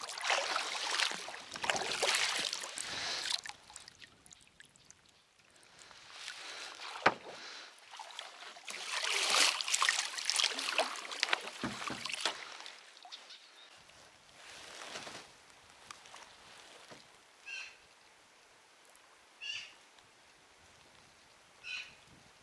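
A small boat being manoeuvred in to moor by the bank: irregular bursts of water sloshing and swishing. Near the end come four short bird chirps, roughly two seconds apart.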